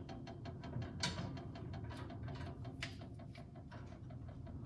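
Quick, even run of ratcheting clicks as a set collar is tightened on the Model T's Ruckstell shift cross shaft, with a sharper metal knock about a second in and another near three seconds.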